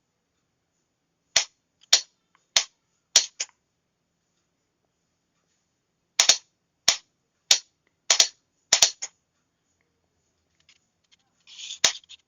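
Sharp clicks of a Morse signalling key being worked by hand, each stroke a quick press and release, in two spaced runs as letters are sent.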